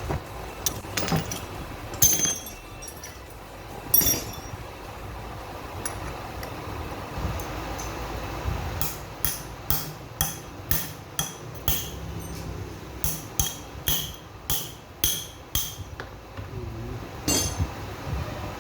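Hammer striking metal engine parts: a couple of sharp single knocks, then a quick run of ringing taps, about three a second with a short pause partway, and one last knock near the end.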